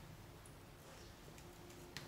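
Near silence, with faint soft handling sounds of fluffy slime being pressed and kneaded by hand and a small click just before the end.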